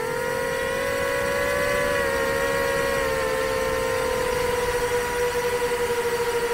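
Nazgul 5-inch FPV quadcopter's motors and two-blade propellers whining in flight: a loud, steady whine that wavers a little in pitch.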